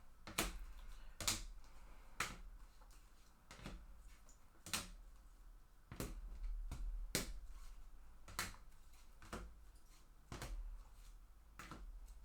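Trading cards being set down one at a time on a table, a short sharp tap about once a second, roughly eleven taps in all.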